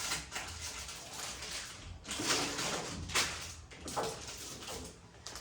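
Rustling and handling noises of grocery packaging being picked up and moved about, in several irregular bursts.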